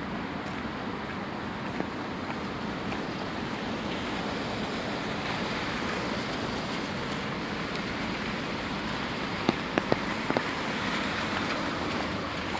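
Steady wet hiss of city traffic on rain-soaked streets, swelling over several seconds as car tyres pass on wet asphalt. A few sharp ticks come in a quick cluster late on.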